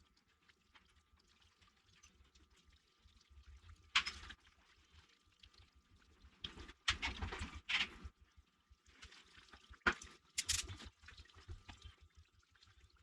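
Coolant draining out of a Ford 420 tractor's engine block, trickling steadily with a few louder, irregular splashes.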